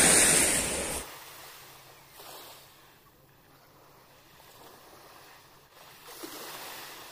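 Loud rushing noise that cuts off abruptly about a second in. It is followed by faint waves washing on the shore, swelling and falling away a few times.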